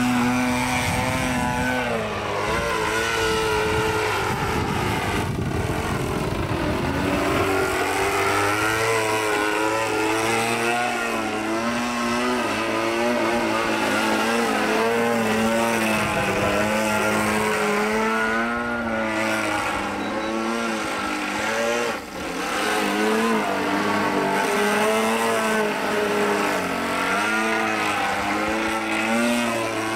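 Gasoline-engined radio-control aerobatic plane in flight. Its engine and propeller note rises and falls again and again with the throttle through the manoeuvres, with one brief sharp dip about three-quarters of the way through.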